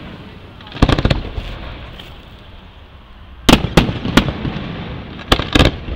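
Aerial firework shells bursting overhead. A cluster of bangs comes about a second in, three more follow in quick succession around three and a half to four seconds, and two come near the end, each trailing off in a short fading echo.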